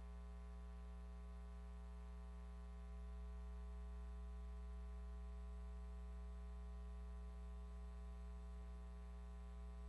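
Steady low electrical hum with a faint buzz and hiss, growing slightly louder about three seconds in: dead air on the broadcast feed, with only the audio chain's mains hum left.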